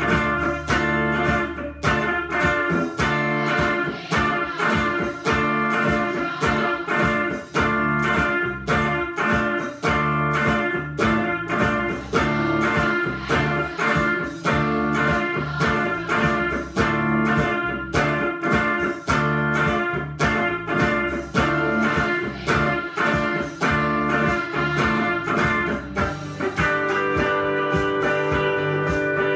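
Telecaster-style electric guitar played in a steady picked rhythm of repeated notes, changing about 26 seconds in to held, ringing chords.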